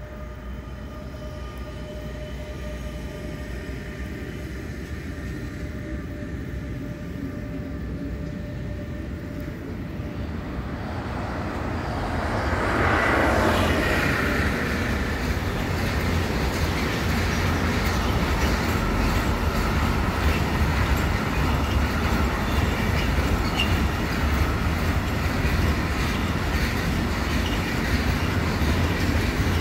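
A freight train carrying truck semi-trailers approaches and passes close by. The rolling noise grows steadily for about twelve seconds and is loudest around thirteen seconds in, as the locomotive passes. After that the wagons keep rolling by with an even rumble.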